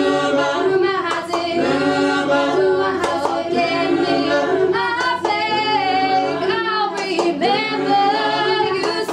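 Mixed-voice school choir singing a cappella in rehearsal, under a conductor: chords held a second or two, with short breaks between the phrases.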